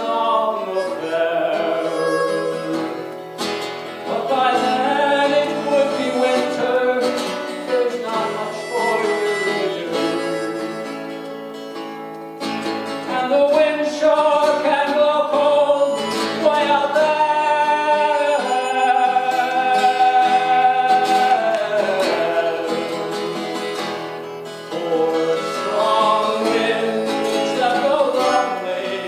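A live folk-country song: acoustic guitar played with singing, running on without a break.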